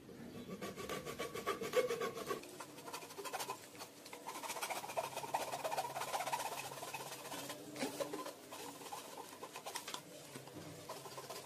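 Hacksaw blade sawing through the black duct neck of an old motorcycle air-filter cover: fast back-and-forth rasping strokes with a couple of short pauses.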